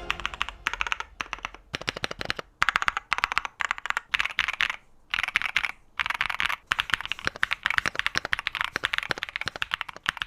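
Typing on a Keychron mechanical keyboard: fast runs of key clicks in bursts, with short pauses between them.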